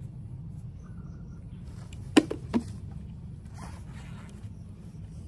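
Two sharp knocks about a third of a second apart, a little over two seconds in, over a steady low rumble.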